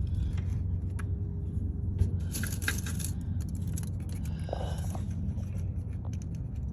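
Small socket wrench loosening a Chevrolet C10's distributor cap screws: scattered clicks and a short metallic scraping rattle about two and a half seconds in, over a steady low hum.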